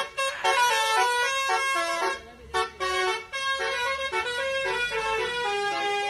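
A lorry's telolet (basuri) musical horn playing a tune, stepping from note to note with short breaks between phrases, over a faint low engine rumble.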